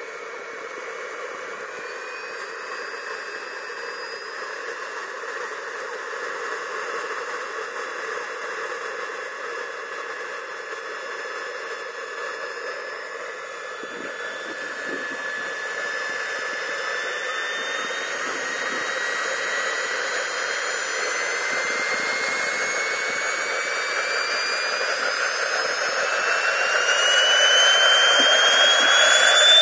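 JetCat PTH-2 model turboshaft turbine of a Vario Alouette II RC helicopter running on the ground: a jet whine over a steady hiss. The whine rises slowly in pitch, then climbs faster and gets louder over the last few seconds as the turbine spools up.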